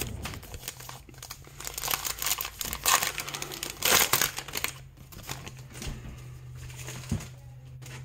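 A plastic baseball-card pack wrapper being crinkled and torn open by hand, with the loudest crackling about two to four and a half seconds in.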